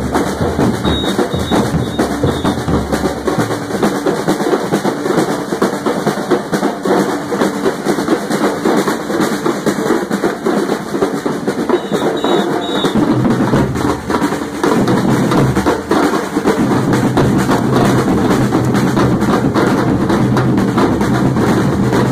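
Street drum band playing together: large surdo bass drums struck with mallets and snare drums played with sticks, in a dense, steady rhythm. The deep bass strokes fall back a few seconds in and come in strongly again about two-thirds of the way through.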